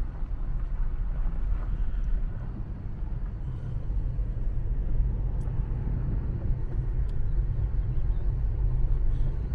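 Car cabin noise while driving on a gravel road: a steady low rumble of tyres and engine.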